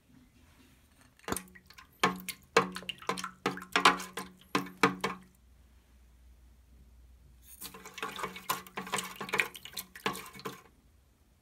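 A thin metal utensil stirring water in a clear plastic tub, with splashing and quick clicks and taps as it knocks against the tub's sides. The stirring comes in two spells about two seconds apart.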